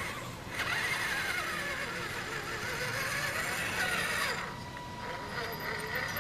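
Radio-controlled scale trail truck's electric motor and gears whining as it drives through mud, the pitch rising and falling with the throttle for about four seconds before easing off.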